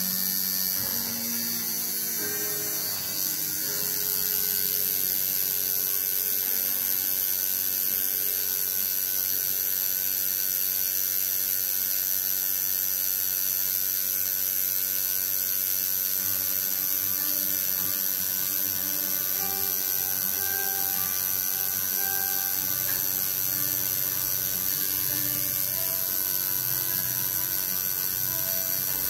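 Home-rebuilt coil tattoo machine buzzing steadily as it drives a single needle into skin to line lettering, a little louder from about four seconds in.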